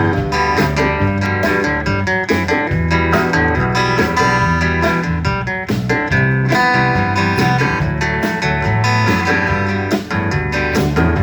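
Instrumental passage of a song with no singing: strummed acoustic guitar over a bass line.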